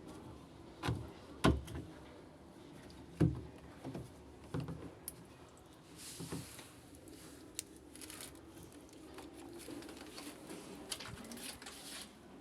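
A few irregular knocks and clicks of things being handled, with scattered lighter rustling and tapping.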